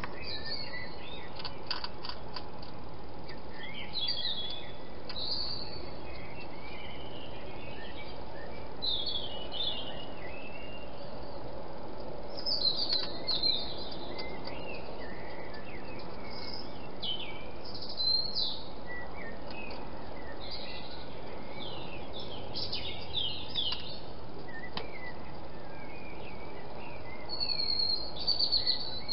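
Several songbirds singing in the early-morning dawn chorus: scattered short chirps and trills, a little louder near the end, over a steady background hiss.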